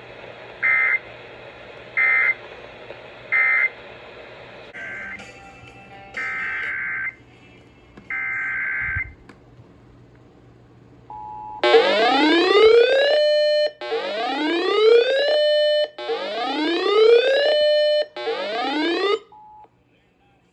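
Emergency Alert System digital data tones: three short warbling end-of-message bursts, then three longer header bursts. These are followed by an alert tone, four loud rising sweeps, each climbing and then holding before it cuts off.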